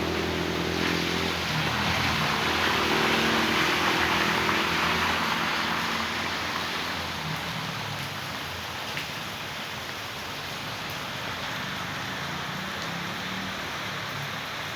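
Floodwater from heavy rain rushing along as a steady, noisy rush. A vehicle engine hums in the first half and fades away by about halfway through.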